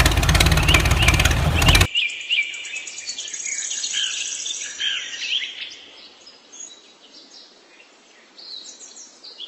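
Music that cuts off abruptly about two seconds in, followed by birds chirping and trilling in many short, high calls that grow fainter toward the end.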